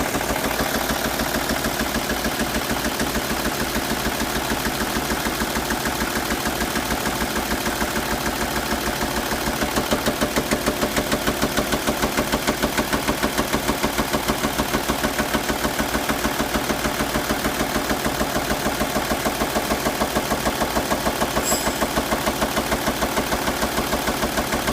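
Audi/VW 2.5 V6 TDI diesel engine idling, with a steady, fast rhythmic clatter.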